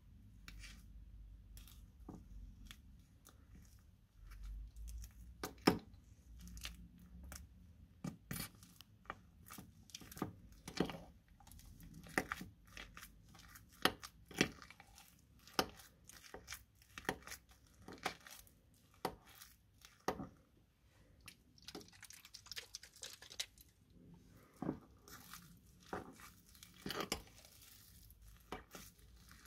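A metal spatula stirring and lifting a wet, gritty mix of fake snow, glitter glue and glitter in a glass bowl: irregular crunching and scraping with frequent sharp clicks, about one or two strokes a second.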